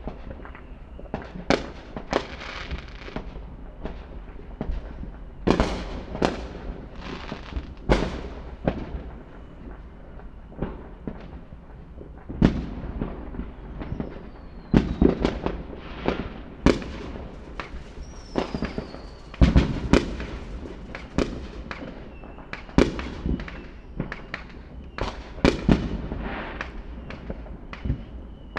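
Fireworks going off in an irregular string of loud bangs, some followed by crackling, with a few faint rising and falling whistles from rockets in between.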